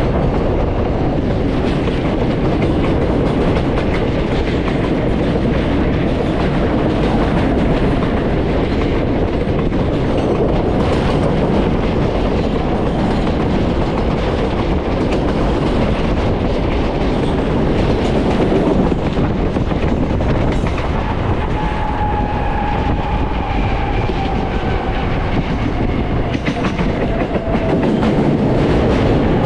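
New York City subway L train running along the track: a steady rumble and rattle of wheels on rails. A faint whine falls slowly in pitch over the last several seconds.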